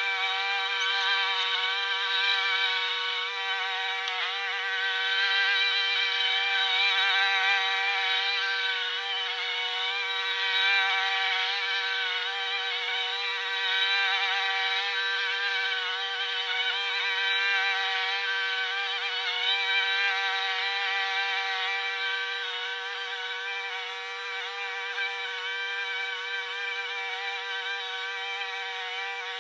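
Lawn mower engine running while cutting grass, sped up eight times so it buzzes high like a bee. Its pitch wavers as it works, and it grows fainter toward the end as the mower moves away.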